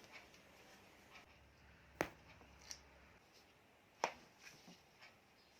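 A few short, sharp clicks, the two loudest about two seconds apart, with fainter ones between.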